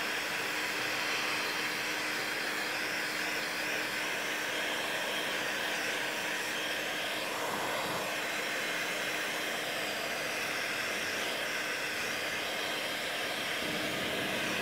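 Heat gun blowing steadily, a constant rush of hot air with a steady hum under it, as it heats a polyethylene repair strip and the kayak hull around the scupper hole until the plastic goes clear for welding.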